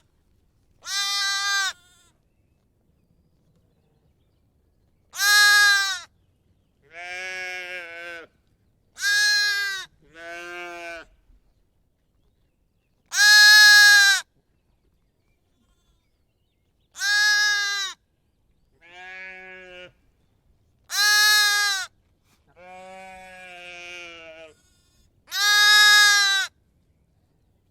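Sheep and goat bleats: about eleven separate single bleats, each lasting about a second, with silent gaps between. Most are loud and fairly high; a few are fainter and lower-pitched.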